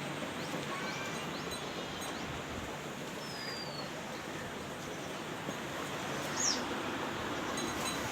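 Steady outdoor background noise with a few short bird chirps.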